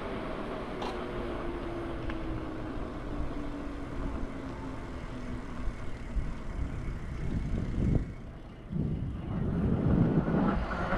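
Street traffic: a passing vehicle's motor whine falls steadily in pitch, then a rougher rumble swells and a new whine starts to rise near the end.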